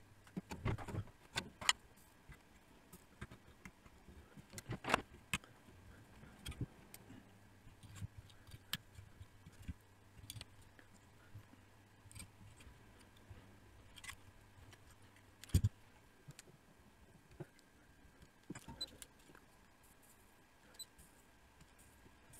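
Scattered light clicks and taps of hand tools (tweezers, side cutters, a soldering iron) and a circuit board being handled on a rubber work mat, with sharper knocks about five seconds in and again past fifteen seconds. A faint low hum sits underneath through the middle.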